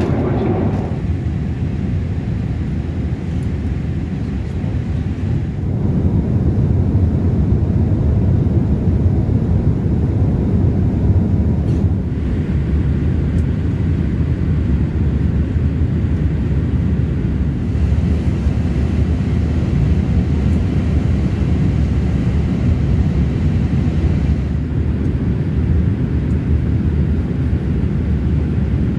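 Steady low rushing cabin noise of a Boeing 787-8 airliner in cruise flight, its character shifting slightly a few times.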